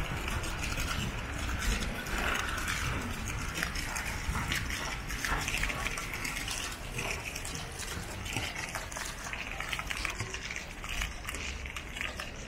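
Outdoor square ambience: water splashing from ground-level fountain jets, mixed with footsteps and many small clicks on wet paving stones, over a low rumble of wind on the microphone.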